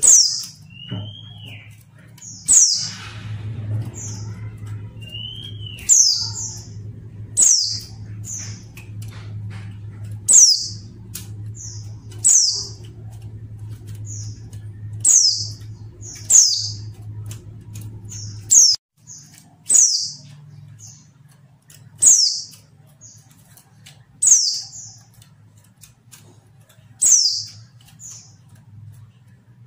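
Female white-eye (pleci) calling: a sharp, high, downward-slurred note repeated about every two seconds, most followed by one or two shorter, softer notes.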